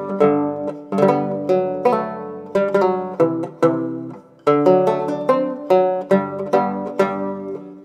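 Background music on a plucked string instrument, a steady stream of picked notes that ring and fade.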